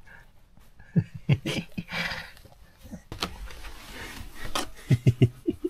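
A man's soft chuckles in short breathy bursts, a few about a second in and a quick run near the end, with rustling in between as a hand rubs a dog's fur.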